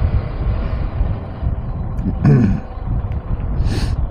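KTM 390 Adventure motorcycle under way, heard as a steady low rumble of engine and wind on the helmet microphone. About two seconds in the rider makes a short vocal sound falling in pitch, and a brief hiss follows near the end.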